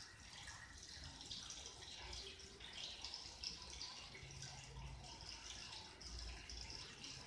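Faint scratching of a ballpoint pen on paper as lines are drawn, over a low hum.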